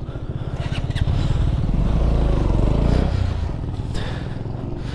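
Sport motorcycle engine pulling away from a stop, getting louder over the first couple of seconds. Its note drops about three seconds in and the sound eases off after that.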